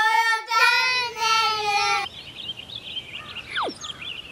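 A child's high voice sings out the channel name in a drawn-out, sing-song call lasting about two seconds. Then faint chirps over a hiss, and a single quick falling whistle-like glide about three and a half seconds in.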